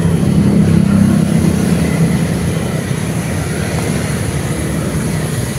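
Steady low hum of a motor vehicle engine running at an even pitch, a little louder in the first two seconds.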